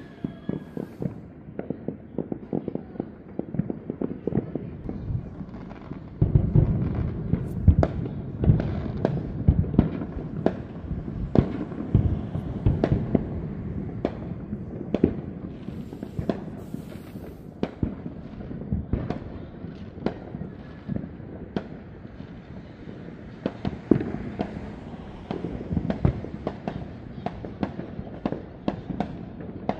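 Fireworks and firecrackers going off, many overlapping: a dense, continuous stream of pops, bangs and deeper booms, growing heavier about six seconds in.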